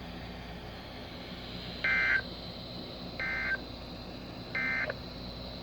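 NOAA Weather Radio's Emergency Alert System end-of-message signal: three short warbling digital data bursts, about 1.3 s apart, the first the loudest, over steady radio hiss. They mark the end of the severe thunderstorm warning broadcast.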